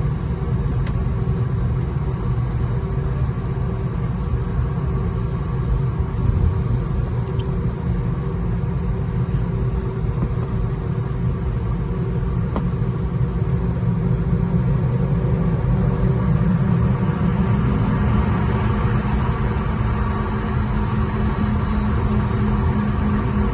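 Steady rumble of an airliner cabin with the engines' hum, the aircraft rolling on the ground after landing; one engine tone steps up in pitch about two-thirds of the way through.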